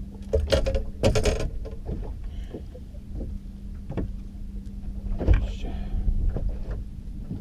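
Sharp knocks and handling noises on a small fishing boat as a hooked fish is brought in, over a steady low rumble and a faint low hum.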